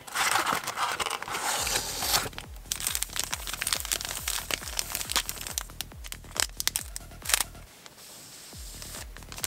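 Plastic wrappers of Topps Formula 1 trading-card packs crinkling as the packs are pulled from their box and handled, densest in the first two seconds, with a sharp crackle about seven seconds in. Electronic dance music with a steady beat plays underneath.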